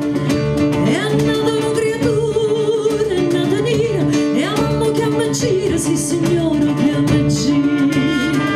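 Live ensemble music: a voice sings a gliding, wavering melody over guitar and held instrumental tones.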